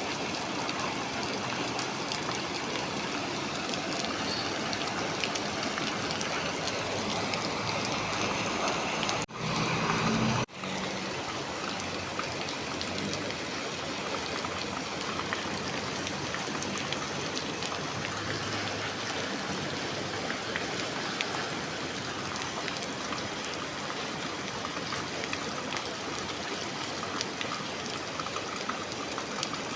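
Storm rain heard from inside a café: a steady hiss of rainfall with scattered fine drips and taps. It cuts out abruptly twice, about nine and ten and a half seconds in.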